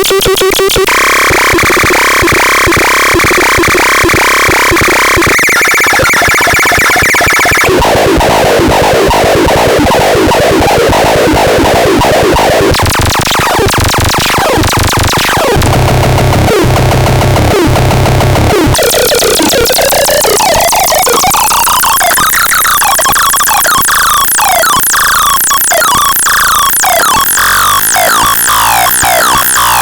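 Harsh, noisy electronic synthesizer sounds, loud and dense, switching to a new texture every several seconds. There is a rising sweep about two-thirds of the way through, then a fast stream of repeating blips.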